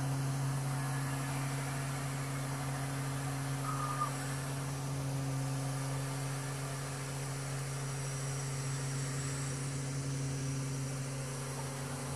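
Mobile crane's diesel engine running with a steady low drone, heard from inside the operator's cab.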